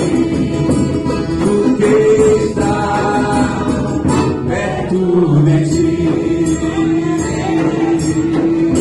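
Choir singing a Christian worship song with instrumental accompaniment, holding long sung notes.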